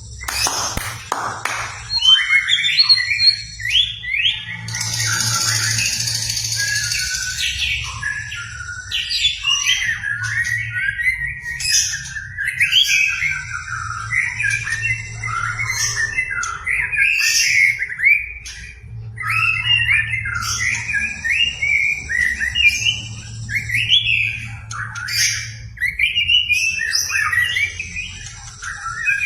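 White-rumped shama (murai batu) singing a long, varied song of rapid whistles and chatter that change phrase every moment. It is a full, show-off repertoire ("bongkar materi") of the kind played to provoke other shamas into singing. A steady high buzz comes and goes behind it.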